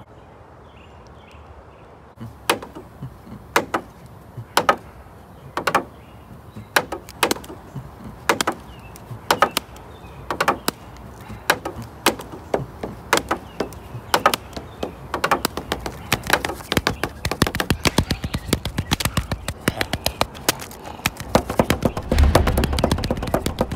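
A series of sharp knocks, about one a second at first, speeding up into a rapid clatter, then two heavy low booms near the end.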